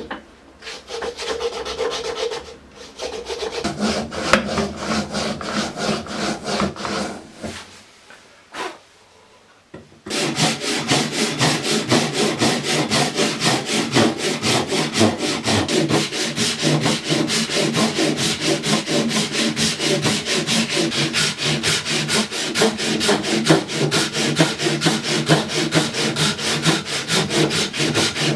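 Handsaw cutting through maple, with rasping back-and-forth strokes. After a short lull about eight to ten seconds in, the sawing runs in fast, even strokes.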